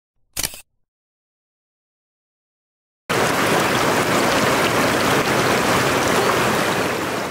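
A brief camera-shutter click about half a second in. From about three seconds in, shallow mountain-stream water rushes and splashes, heard close up, starting suddenly.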